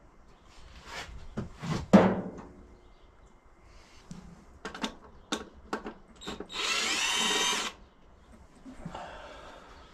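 Cordless drill/driver backing out the tractor's 10 mm cowl bolts: knocks and clatter of the tool and metal first, the loudest a sharp knock about two seconds in, then the drill motor runs steadily for a little over a second about seven seconds in, with a fainter short run near the end.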